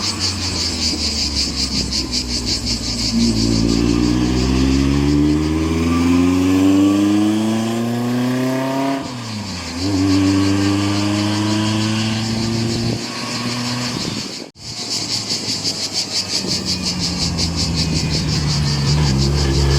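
Historic racing car engine accelerating hard, its pitch climbing through a gear, dropping sharply at an upshift about nine seconds in, then climbing again. After a sudden break, another racing engine revs up toward the end.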